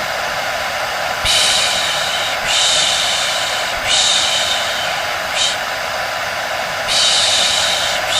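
A hair dryer running steadily, with a person shushing over it in repeated long 'shhh' sounds, about a second each, to soothe a baby to sleep.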